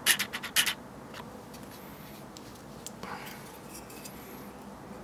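Hinged side of a 3D-printed plastic rail attachment being worked by hand: a quick cluster of sharp plastic clicks in the first second, then faint handling rubs and ticks.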